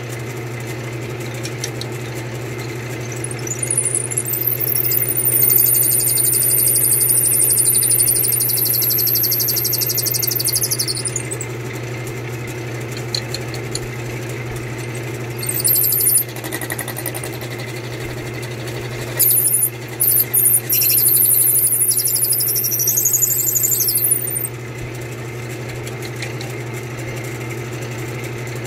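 Wood lathe running with a long drill bit in its headstock chuck, boring lengthwise into a turned wooden chair spindle: a steady motor hum throughout, with a high-pitched squeal from the bit cutting the wood in two long stretches, about four to eleven seconds in and again about nineteen to twenty-four seconds in, plus a short squeal in between.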